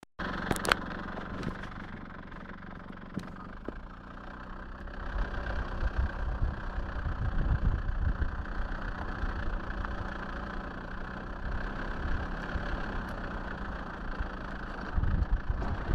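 Car engine running steadily as the car moves slowly along the road, with low rumbling that swells in the middle and again near the end. A sharp click sounds just under a second in.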